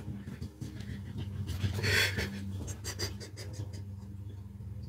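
A man breathing heavily in and out, with one strong breath about two seconds in and a few short clicks just after it, over a steady low hum.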